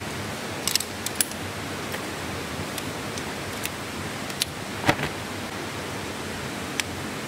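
Steady rushing noise with a scattering of small clicks and knocks; the loudest knock comes about five seconds in.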